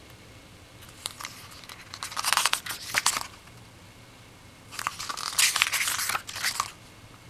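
Glossy book pages being turned by hand: two page turns, each one or two seconds of paper rustle with sharp flicks, the first starting about a second in and the second about five seconds in.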